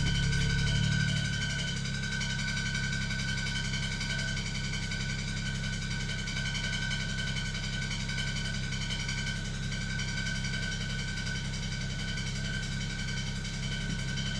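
BMW 335i's twin-turbo straight-six engine idling steadily, a little louder in the first second or two, with the rattle that was traced to a slightly bent flywheel.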